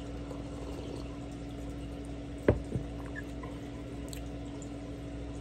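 A person drinking from a mug: small liquid sipping sounds, with a sharp knock about halfway through and a softer one just after, over a steady hum.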